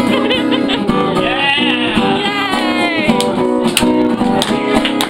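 Acoustic guitar playing a song's instrumental intro, with sustained chords and sharper, regular strums from about three and a half seconds in.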